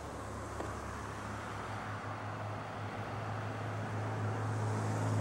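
Street traffic with a vehicle engine humming steadily, growing louder toward the end.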